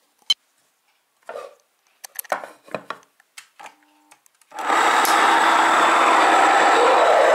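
A few clicks and knocks, then about four and a half seconds in a wooden-housed electric grain mill switches on and runs with a loud, steady grinding noise as it mills grain into flour.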